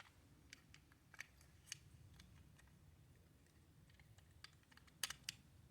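Faint clicks and taps of small plastic toy parts being handled and pressed into place: a battery assembly seated into a plastic toy housing, with a quick run of three clicks about five seconds in.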